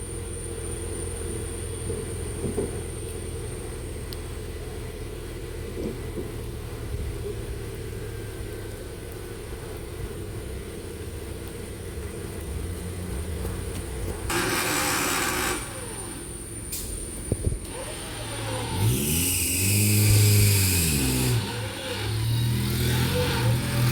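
Maruti Gypsy off-road vehicle's engine running low and steady, then revved up and down several times in the second half. Loud hissing noise comes in about two-thirds of the way through and again during the first revs.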